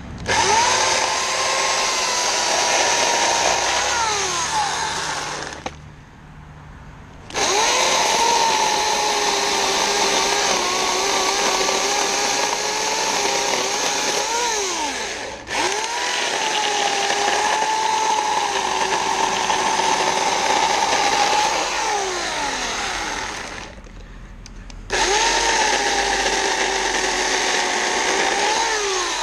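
Portland 14-inch corded electric chainsaw running in long cuts through tree logs, its motor whine wavering and sagging in pitch as the chain works through the wood. It stops twice for about a second and a half between cuts and briefly drops out once in the middle.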